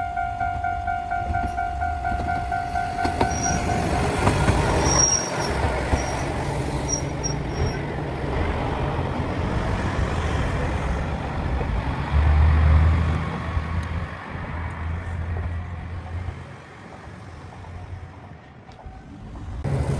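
A Kishu Railway diesel railcar running over rusty rails at double speed. Its engine drone and wheel-on-rail rumble build from about four seconds in, with brief high squeals early in the pass. It is loudest a little past the middle, then fades. A steady pulsing tone sounds until about four seconds in.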